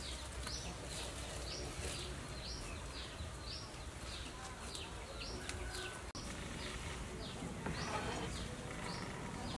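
Outdoor ambience: a short high chirp repeating about twice a second over a faint low hum, with a soft rustle near the end.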